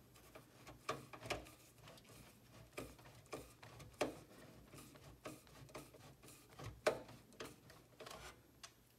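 Screwdriver driving a screw that fastens a PC power supply into its metal case: irregular light clicks and scrapes, the loudest about a second in, at four seconds and near seven seconds.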